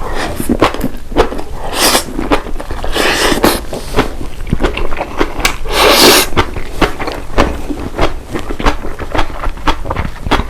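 Close-miked eating sounds: rapid, irregular wet chewing clicks with several louder, longer noisy bursts of slurping and mouth noise.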